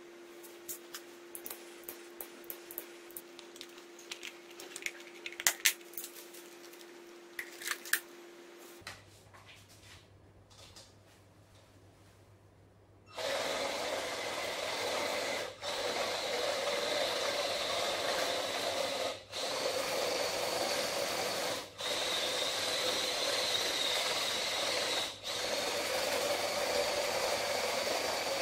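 Light clicks and taps of wire connectors being handled, then the geared 12 V 555 reduction motors of a metal RC tank running steadily and driving its motorcycle-chain tracks, with four brief breaks.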